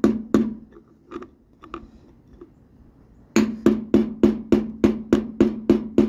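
Mallet blows on a screwdriver being driven into the steel dust cap of a lawn tractor's front wheel hub, to loosen the cap so the wheel can come off. One hard strike near the start and a few lighter taps, then from a little past halfway a fast, even run of blows about three a second.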